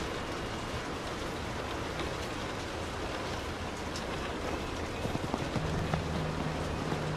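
Rain falling steadily on a car's roof and windows, heard from inside the cabin: an even hiss with scattered sharper drop ticks. A low steady hum joins about five and a half seconds in.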